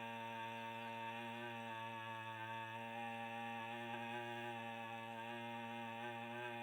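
A low voice holding a long, steady "aa" (आ) vowel on one unchanging pitch, as a chanted tone.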